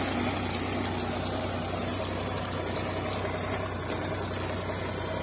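Solis Yanmar 4WD tractor's diesel engine running steadily under load in low fourth gear, pulling a three-bottom reversible plough through hard black soil.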